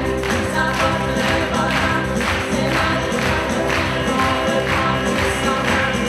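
Live band performing an upbeat song: several voices singing over strummed ukulele and guitars, bass and a steady beat of about two strokes a second.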